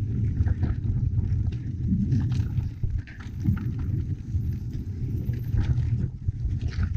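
Full-suspension mountain bike clattering and rattling over rocks and roots on a steep, rough downhill trail, with many quick irregular knocks from the bike over a constant low rumble on the camera's microphone.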